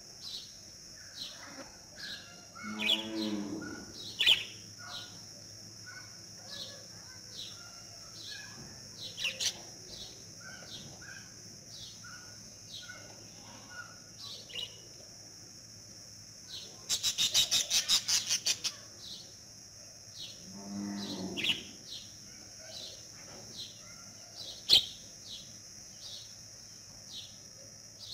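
Rural outdoor background: birds chirping over and over against a steady high hiss, with a drawn-out call from a farm animal twice, a few seconds in and again about three-quarters through, and a rapid trill in between.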